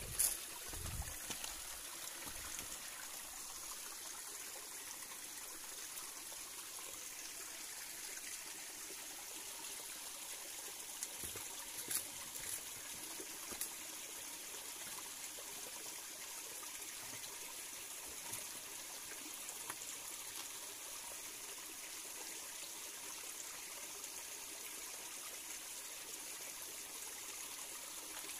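A small rocky stream running and trickling steadily, with a few light knocks near the start and about twelve seconds in.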